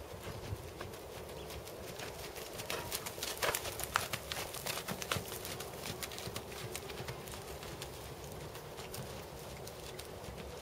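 Hoofbeats of a Percheron/Thoroughbred horse trotting on sandy arena footing, with irregular sharp clicks that are thickest and loudest in the middle of the stretch.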